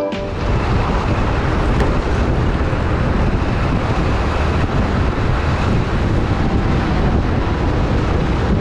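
Wind rushing over the microphone of a moving motorcycle on the road, a loud, steady low rumble with road and engine noise beneath it.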